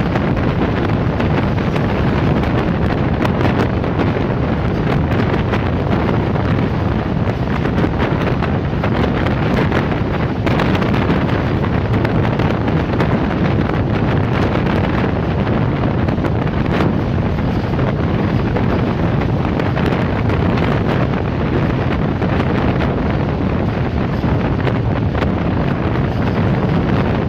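Wind buffeting the microphone at an open train window, over the steady running noise of a moving passenger train on the rails.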